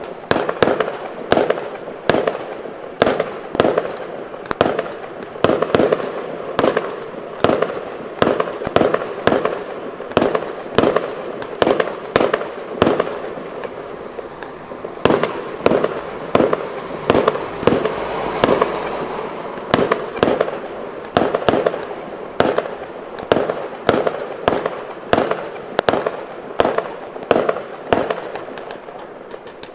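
Fireworks display: a steady run of sharp bangs, about two a second. About halfway through, a denser stretch of crackling joins the bangs.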